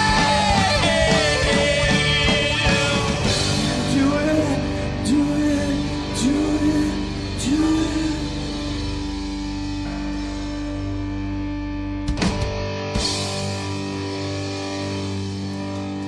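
Live rock band with a lead singer holding wavering notes over guitar, bass and drums, with a few cymbal hits. From about halfway through the singing stops and the band holds a closing chord, struck again about twelve seconds in and left ringing as the song ends.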